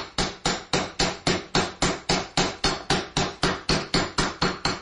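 Sound effect of a hammer driving nails, even sharp blows about four a second. It is the host's mock-crucifixion "Jesus style" blow-out of a caller, cutting them off the air.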